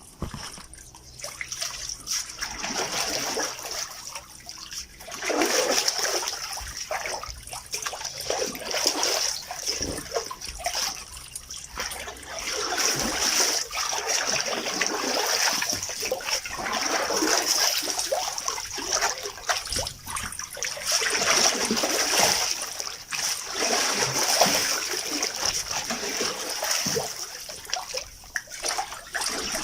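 Water sloshing and splashing inside a washing machine drum, coming in repeated surges that swell and fade every few seconds over a steady hiss.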